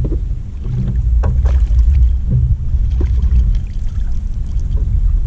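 Wind buffeting the microphone in a steady low rumble out on open water, with a few light knocks and clicks, mostly between one and three seconds in.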